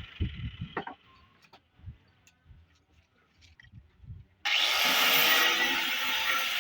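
A few low knocks and small handling clicks, then about four and a half seconds in an angle grinder with a sanding disc starts abruptly and runs loud and steady, sanding wood.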